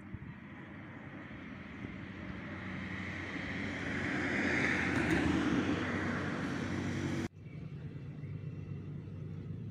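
A motor vehicle passing by: its engine and road noise swell gradually to a peak about five seconds in, then cut off abruptly about seven seconds in.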